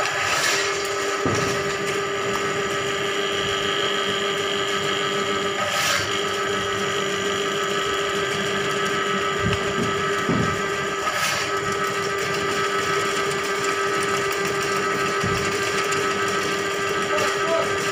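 Electric drain-cleaning machine running, its motor turning a spiral snake cable to clear a blocked drain. A steady hum that starts suddenly, with two short knocks about six and eleven seconds in where the tone briefly wavers.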